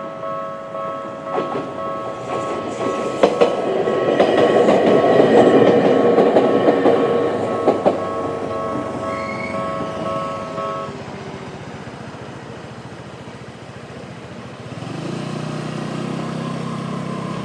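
Level-crossing warning bell in the Tokyu-style tone, ringing in a steady repeating rhythm while an ex-Tokyu 1000 series electric train passes, its wheels clacking over the rail joints. The bell stops abruptly about eleven seconds in, once the train has cleared. Near the end a low hum starts.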